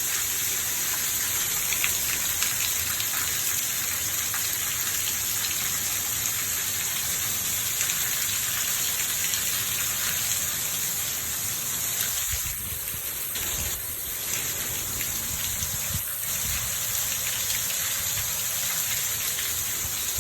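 Heavy rain pouring down steadily, dipping slightly in level a little past halfway.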